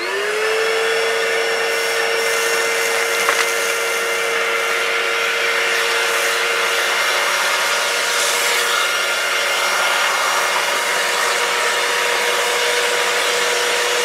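MacAllister MEWVP30L 1400 W wet-and-dry vacuum cleaner spinning up to full speed, its motor whine rising and settling within half a second, then running steadily while it sucks up sawdust and wood chips through the hose. A short click comes about three seconds in.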